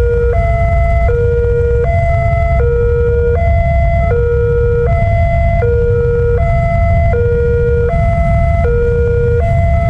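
Railway level-crossing warning alarm sounding its two-tone signal, a lower and a higher tone alternating about every three-quarters of a second, over a steady low rumble. It is the warning that a train is approaching.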